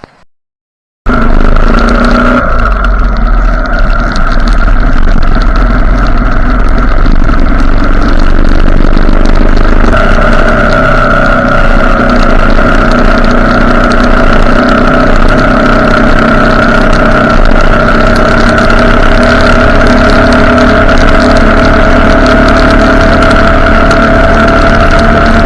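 Motorcycle engine running steadily while riding, starting suddenly about a second in; its pitch sags a little in the middle and slowly climbs again.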